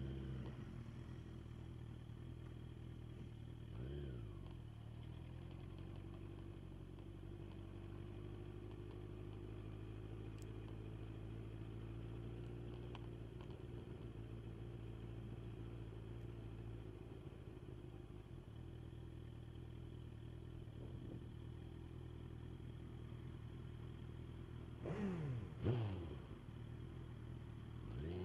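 Inline-four sportbike engine running at a steady cruise. About 4 seconds in its pitch briefly dips and climbs again, like a gear change. Near the end comes a quick, loud swing of the engine note down and back up.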